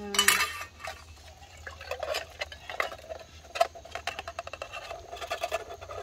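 Canned green beans being tipped and shaken out of an opened metal can into a metal canteen cup: irregular metal clinks and scrapes, loudest just at the start, with a busy stretch of rattling through the middle.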